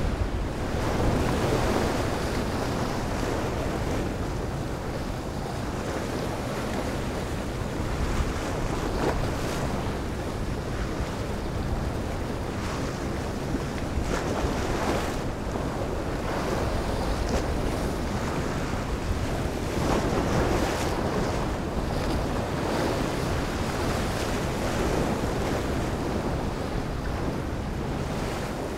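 Ocean surf washing in steadily, with wind buffeting the microphone in gusts.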